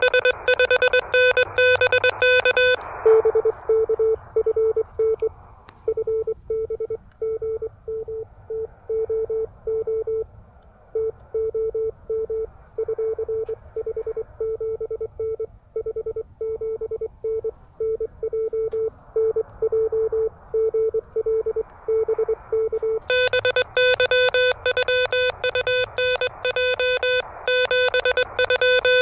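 Morse code from an Elecraft KH1 CW transceiver playing through a small speaker. At the start and again near the end, the operator's own keyed sidetone sends in crisp, buzzy dots and dashes. In between, another station's Morse comes in as a keyed tone over receiver hiss.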